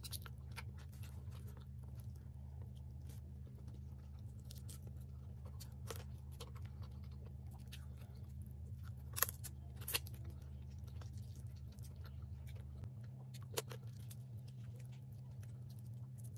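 Close-up eating sounds: chewing and mouth noises while crab is eaten by hand, with scattered sharp cracks and clicks of crab shell being pulled apart, the loudest about nine and ten seconds in. A steady low hum runs underneath, its lowest part dropping away about thirteen seconds in.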